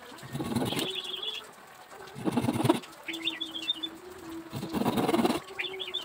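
Small fine-toothed hand saw cutting through thin bamboo strips on a wooden block, in three short bursts of sawing about two seconds apart. Between the cuts, birds chirp and coo in the background.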